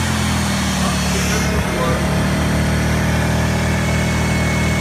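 Small portable inverter generator's engine running at a steady speed, a constant hum.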